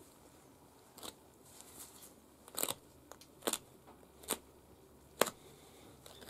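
Short, crisp snips of a small knife blade cutting through the skin and cartilage at the base of an animal's ear as the ear is turned, about five cuts spread over a few seconds, the one near the end the loudest.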